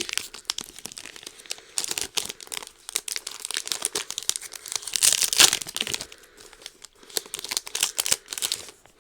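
Wrappers of Weiss Schwarz trading card booster packs crinkling and tearing as the packs are opened, a dense irregular crackle that is loudest about five seconds in.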